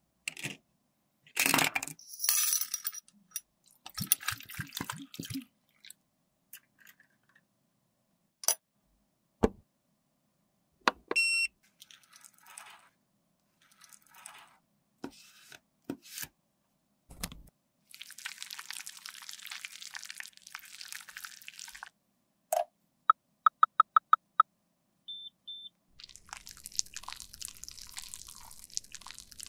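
Hard plastic makeup compacts clicking and knocking together as they are handled, then a plastic scraper rasting in repeated strokes as it scrapes lipstick across paper. About three-quarters of the way in there is a quick run of about six short electronic beeps, and near the end a steady hiss.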